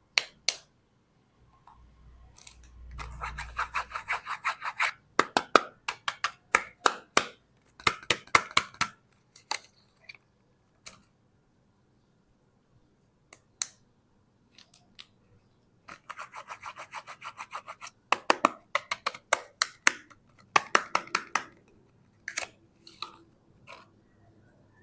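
Bar soap being unwrapped by hand: the packaging crinkles and rubs in two longer spells, with many sharp snaps and clicks in between and quiet gaps.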